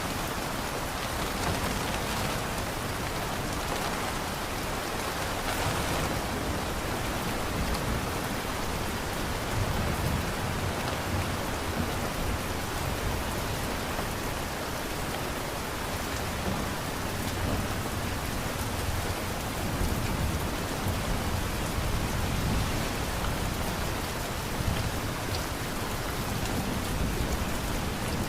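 Steady rain falling, with low rumbles of distant thunder swelling now and then.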